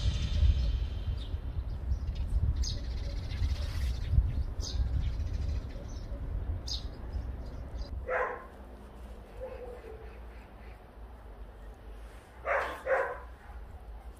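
Short animal calls: one at about eight seconds in and two close together near the end, over a low rumble that fills the first half.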